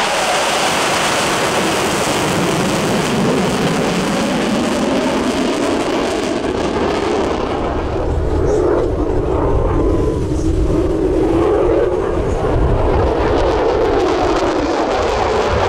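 Loud jet noise from a US Navy F-35C Lightning II's single Pratt & Whitney F135 afterburning turbofan flying a display pass. Its pitch slides down over the first few seconds, then climbs back up about eight seconds in as the jet turns and comes round again.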